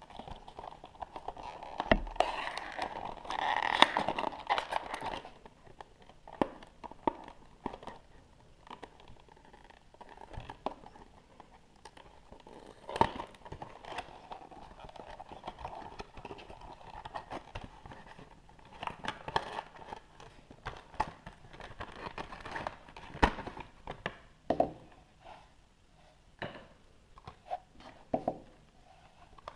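Hands opening a toy beauty cone's packaging: crinkling and tearing of wrapping, heaviest early on between about two and five seconds, with scattered sharp clicks and rustles throughout.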